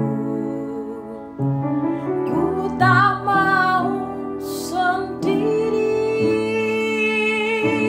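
Woman singing a slow Indonesian worship song with vibrato on held notes, accompanied by chords on a Yamaha upright piano.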